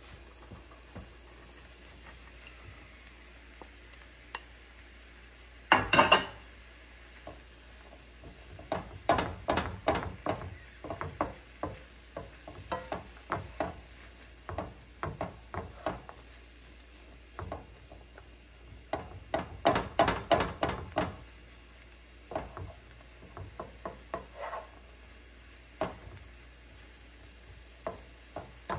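Onions and mushrooms sizzling in a frying pan while a wooden spatula scrapes and stirs against the pan in bursts of quick clicks. About six seconds in there is one loud, brief rush as the chopped mushrooms are tipped into the pan.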